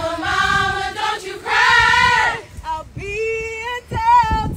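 Women's voices singing together in long held notes, breaking off briefly about two and a half seconds in before the singing starts again.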